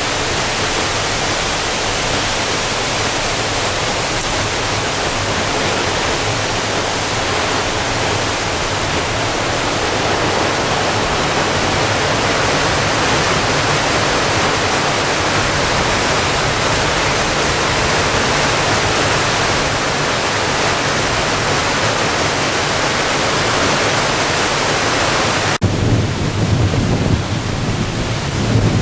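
Steady, even rushing noise on a ship's open deck. About 26 seconds in it cuts off abruptly and gives way to a lower, gusty rumble of wind buffeting the microphone.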